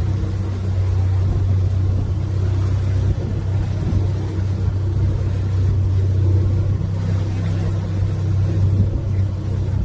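Tour boat's engine running steadily at cruising speed, a constant low hum with no change in pitch.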